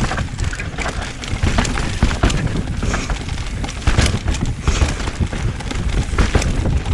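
Mountain bike riding down a rough dirt trail: the bike rattles, with repeated sharp knocks as it goes over bumps, under a constant rumble of wind on the microphone.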